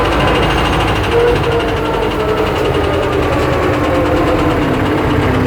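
Diesel engine of a YuMZ-6 tractor-based EO-2621 backhoe running steadily with a rhythmic knock, which the owner takes for piston knock.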